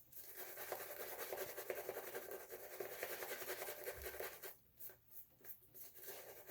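Boar-bristle shaving brush swirling Williams soap lather: a soft, fast, scratchy rubbing of bristles through foam. It falters briefly about four and a half seconds in.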